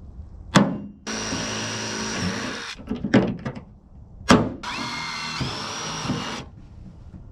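Power drill running in two spells while fastening the boat's wooden box framing, each spell preceded by a sharp knock; the motor whine steps up in pitch partway through the second run.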